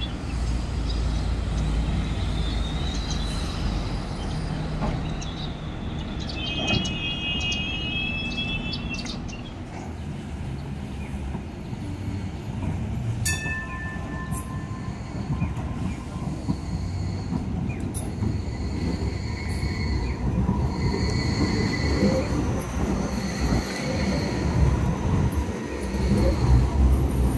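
Hong Kong Light Rail car rumbling along curved track, its wheels squealing in high, on-and-off tones. It runs louder near the end as it passes close by.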